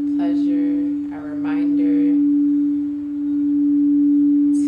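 A single sustained low tone from a sound-healing instrument holds steady and swells and fades about every two seconds, with soft voice sounds over it.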